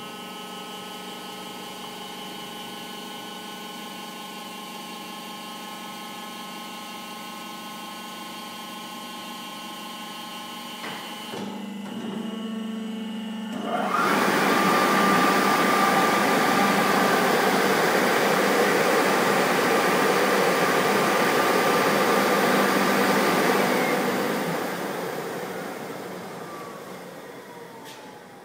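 Rotek 900 paper pile turner running. At first its motor gives a steady hum of several fixed tones while the frame tilts. About halfway through, its side-channel air blower starts with a loud rush of air and a whine, runs for about ten seconds, then is switched off and winds down, its whine falling in pitch as it fades.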